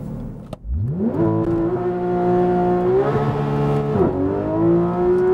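Porsche 911 GT3 RS flat-six launched on launch control: the revs sweep up sharply about half a second in and hold high, drop at an upshift about four seconds in, then climb again. The rear tyres are spinning for traction up into third gear.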